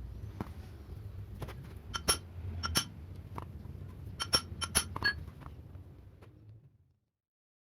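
Small metal parts or hand tools clinking against each other, about ten irregular ringing clinks over a low steady hum, during work on a car starter motor. All sound stops abruptly near the end.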